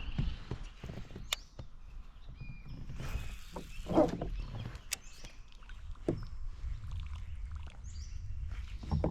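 Low rumbling wind-and-water noise around a fishing kayak on a river, with a few sharp clicks and knocks and a louder rush of noise about four seconds in. A bird chirps faintly now and then.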